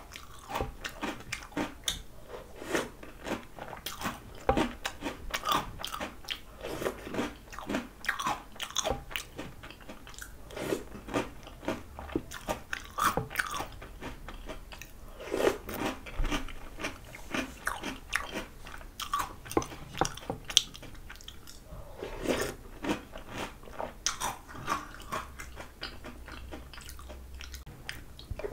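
Close-miked chewing of Oreo O's cereal in milk: a steady run of short, sharp crunches, many each second.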